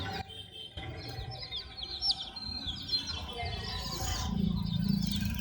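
A group of baby chicks peeping continuously, with many short, high, overlapping chirps. A low hum joins near the end.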